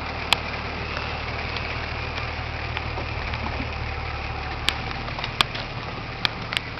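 Nissan Patrol Y60's 2.8 turbo-diesel engine idling steadily as the 4x4 creeps down a steep trench. A few sharp snaps come through, one just after the start and several in the last two seconds.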